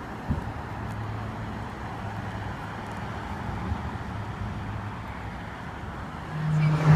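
Outdoor traffic noise with a steady low engine hum, and a short knock about a third of a second in. A louder sound swells up near the end.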